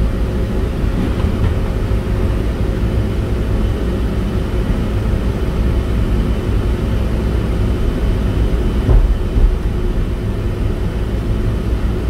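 Moving resort tram heard from inside the cabin: a steady low rumble of the running gear with a faint steady whine, and two louder bumps about nine seconds in.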